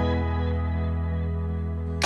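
Background music: a sustained bass note under held keyboard or synth chords.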